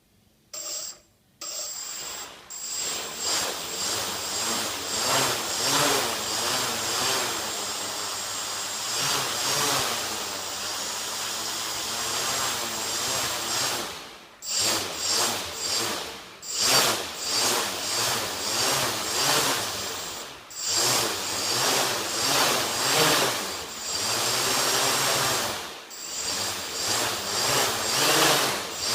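FPV drone's electric motors and propellers whining and buzzing, surging up and down as the throttle is worked, with a few brief cut-outs.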